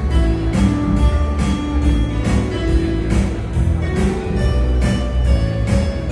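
Electronic keyboard playing an instrumental passage with a steady programmed beat.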